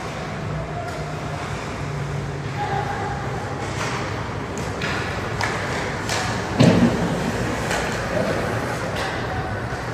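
Ice hockey play: a series of sharp clacks of sticks and puck on the ice, with one louder thud about two-thirds of the way in, over indistinct voices.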